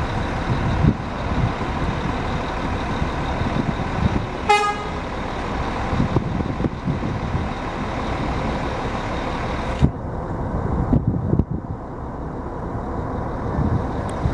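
Diesel engine of a Scania K400IB double-decker coach running as it turns slowly through an intersection, mixed with street traffic. About four and a half seconds in, a vehicle horn gives one short toot.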